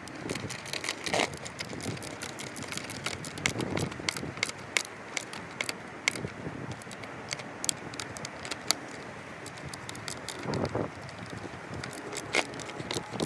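Irregular small metal clicks and clinks of skateboard truck hardware as a wheel is fitted on the axle and the axle nut is turned by hand.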